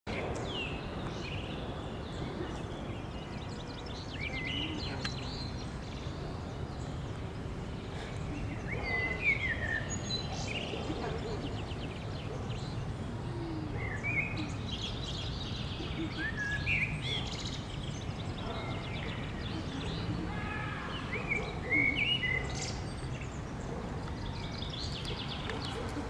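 Rose-ringed parakeets calling: many short calls that slide up and down in pitch, scattered throughout and sometimes overlapping, over a steady low background rumble.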